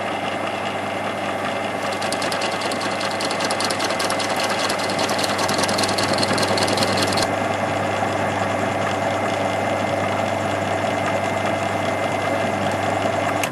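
Metal lathe running steadily while machining the central area of a copper plate clamped to its faceplate. A hissing high layer comes in about two seconds in and cuts off abruptly about seven seconds in.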